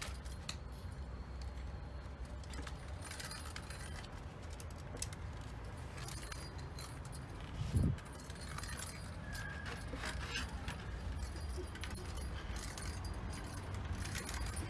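Plastic balls rattling and clicking around the tracks of a plastic cat tower ball toy as a kitten wrestles and rolls it on a tile floor, in scattered bursts, with one dull thump a little past halfway.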